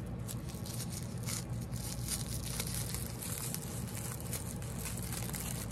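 Small plastic accessory packet from an L.O.L. Surprise doll being crinkled and torn open by hand: a continuous run of small crackles.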